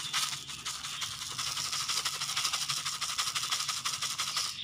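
Dry lovebird seed mix of millet, dried corn and sunflower seeds with water spinach leaves being stirred and tossed by hand in a bowl, making a continuous dense rattling and rustling of small seeds.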